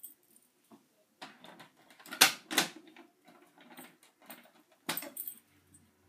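Metal clicks and rattles of a BG-12 fire alarm pull station being reset by hand, with two sharp clacks a little over two seconds in and another near five seconds.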